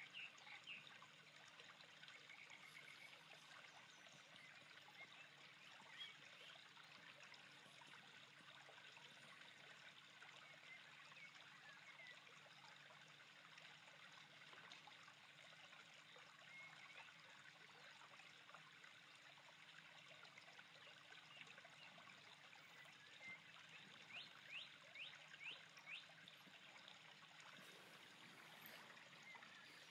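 Faint, steady trickling and lapping of calm water, with a thin low hum underneath that stops near the end. A quick run of short high chirps comes a few seconds before the end.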